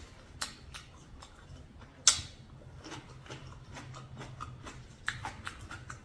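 Close-up eating sounds: chewing with small sharp clicks, the loudest about two seconds in and a quick run of them near the end.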